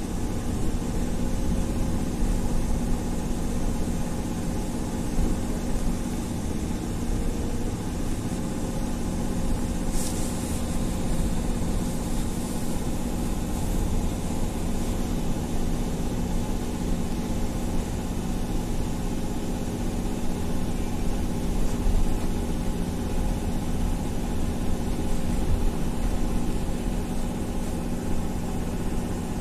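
Interior of a Belkommunmash BKM 333 articulated trolleybus under way: a steady hum of the electric drive over road and body rumble. A hiss starts suddenly about a third of the way through and fades over a few seconds.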